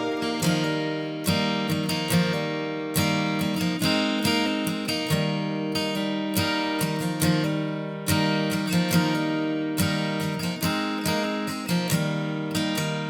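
Background music: acoustic guitar playing a run of plucked and strummed notes, each note starting sharply and ringing on.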